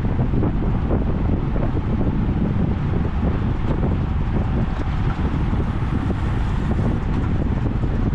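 Steady wind rush buffeting the microphone of a bicycle-mounted camera while riding in a racing pack at about 45–50 km/h.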